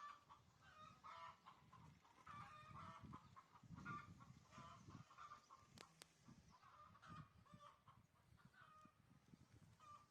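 Faint, repeated short clucking calls of domestic fowl over a low background rumble, with one sharp click about six seconds in.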